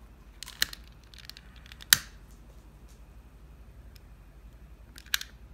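Long-nosed utility lighter clicking as it lights a candle's two wicks: three sharp clicks, about half a second in, about two seconds in (the loudest), and near the end, over quiet room tone.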